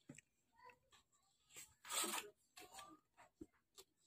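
Paper pages of a model-kit instruction booklet being turned by hand: soft scattered rustles and flicks, with one louder page flip about two seconds in.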